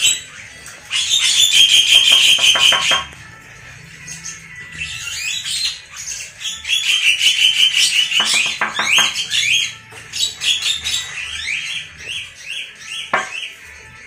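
Caged songbirds singing: loud bursts of rapid, chattering repeated notes, then a run of short rising whistled calls near the end.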